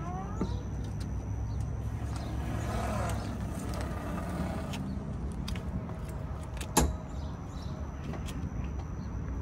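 Low, steady rumble of a motor vehicle running, a little louder around three seconds in, with one sharp knock about seven seconds in.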